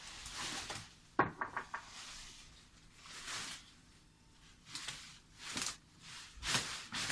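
A sharp knock about a second in, followed at once by a quick rattle of four or five smaller knocks, among several short swishing noises.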